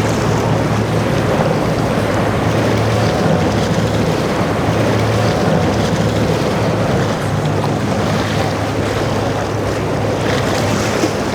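Boat engines running steadily over the wash of waves, with wind buffeting the microphone.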